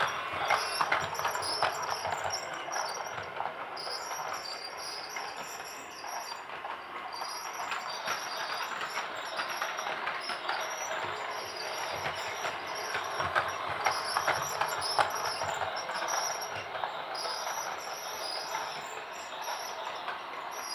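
Toy train running: a steady mechanical whirring with many small rattling clicks throughout.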